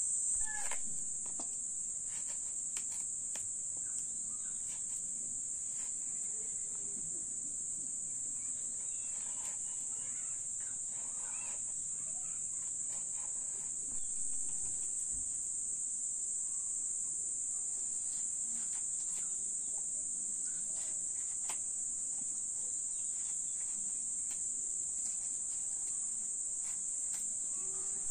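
Steady high-pitched insect chorus, with faint scattered clicks and knocks.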